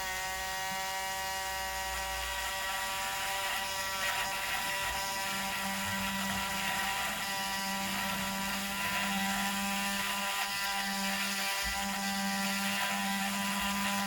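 A small electric power tool, such as a rotary tool or drill, running with a steady whir. A lower hum comes in stronger about five seconds in.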